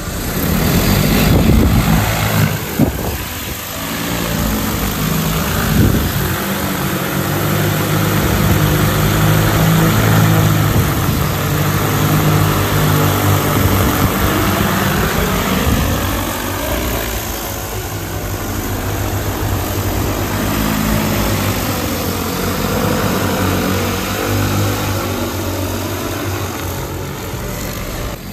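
DJI Agras T50 agricultural spraying drone's rotors running at flight speed, lifting off and flying overhead: a loud, steady low hum with rushing air, whose pitch dips and rises as the drone manoeuvres partway through.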